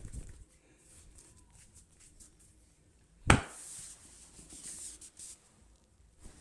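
Hands rubbing on hair and skin during a head massage, with one sharp, loud crack a little over three seconds in, followed by a brief rustle.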